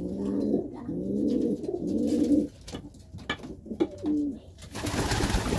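Domestic pigeon cooing: two drawn-out low coos, then a few short ones. Near the end a rough rushing noise takes over.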